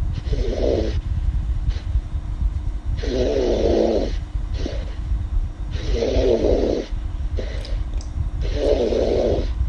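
A girl snoring in her sleep: four loud, rasping snores about every three seconds, each lasting about a second, with short quieter breaths between them, over a steady low rumble.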